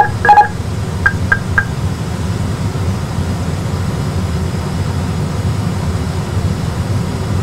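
Airbus A320 simulator flight deck: the autopilot-disconnect warning tones finish right at the start, then three short high beeps sound about a second in. After that a steady low rumble of simulated engine and airflow noise runs on.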